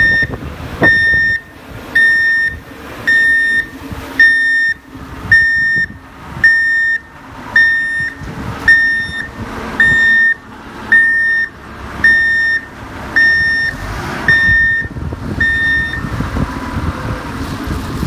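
Vehicle reversing alarm beeping about once a second, some sixteen even half-second tones, stopping about two seconds before the end, over the steady running of the vehicle's engine.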